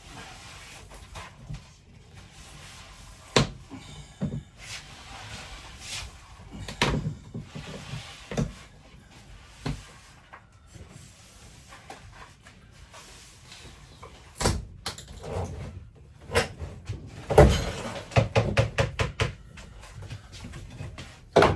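Irregular knocks, bumps and clatter of wooden cabinet and wall panels being worked loose, with a quick run of rattling taps near the end.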